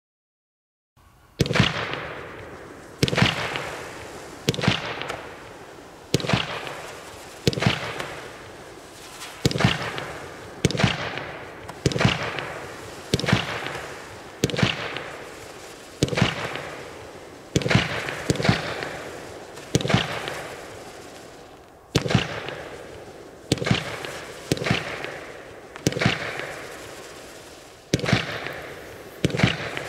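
A 200-gram consumer fireworks cake firing its shots one after another, starting about a second in: a sharp crack about every one and a half seconds, each trailing off in a fading hiss and crackle.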